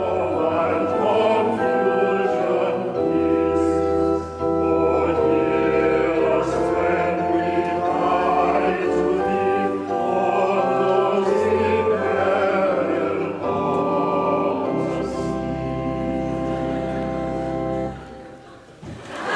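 Choir singing slow, sustained chords over deep held bass notes, in the manner of a church hymn or chant; the music fades out about 18 seconds in.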